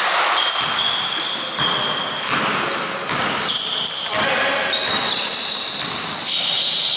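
Basketball sneakers squeaking on a wooden sports-hall floor during play, many short high squeaks one after another, with a basketball bouncing among them.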